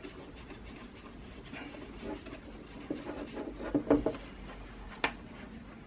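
Fingers rubbing Proofide wax into a Brooks leather saddle: soft, scratchy rubbing, with a few light knocks about three to four seconds in and a sharp tap near the end.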